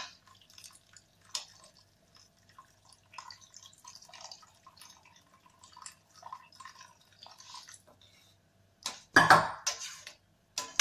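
Water poured from a jug into a steel pot of rice and vegetables, faintly trickling and dripping while a spoon stirs. Near the end a spoon knocks and scrapes loudly against the steel pot.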